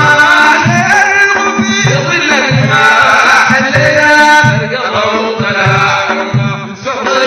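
Sudanese Sufi madeeh praise song: voices chanting together over a steady drum beat of about two beats a second.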